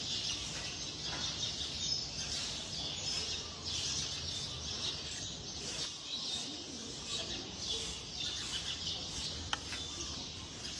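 Many small birds chirping continuously in a dense chorus, with one sharp click near the end.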